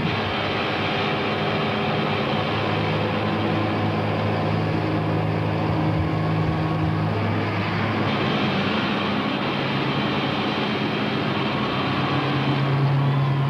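Loud live rock band noise: distorted electric guitar and bass droning on held notes, the pitch shifting about seven seconds in and again near the end.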